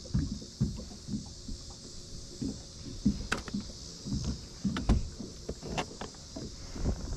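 Irregular knocks and bumps against a plastic kayak hull, with a few sharp clicks, as fishing tackle is handled in the boat, over a steady hiss.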